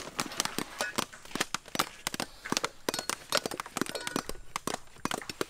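Several knives scraping and knocking against the hard shells of wood apples as the skins are pared off: a dense, irregular run of sharp clicks and short scrapes, several a second.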